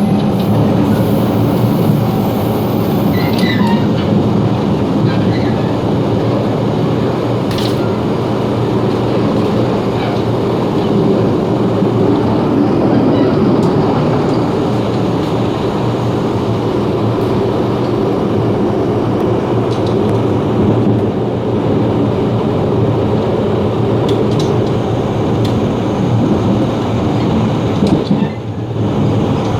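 Running noise in the gangway between cars of a Taroko Express (TEMU1000 tilting electric multiple unit) at speed: a steady rumble with occasional sharp clicks and rattles, and a brief drop in level near the end.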